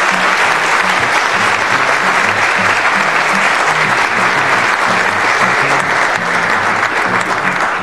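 Audience applauding steadily, with music playing low underneath. The clapping fades just after the end.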